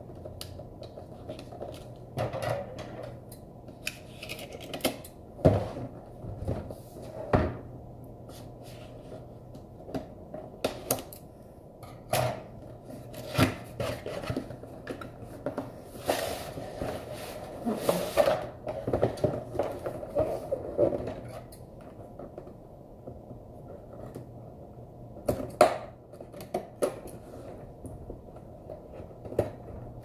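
Cardboard keyboard packaging handled and opened: scattered knocks and taps of the box on the desk, and a longer stretch of scraping and rustling in the middle as the inner box slides against the outer sleeve.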